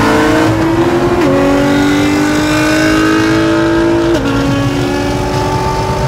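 Modified C6 Corvette's V8 pulling hard at full throttle, heard from inside the cabin, its pitch climbing steadily through each gear with two quick upshifts, about a second in and about four seconds in.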